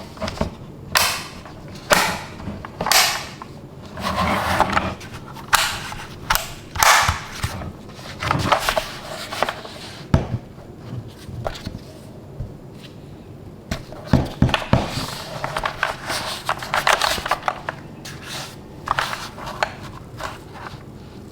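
Unboxing handling noises: cardboard packaging and its contents rubbed, slid and knocked about, in irregular bursts of rustling with sharp clicks and thumps.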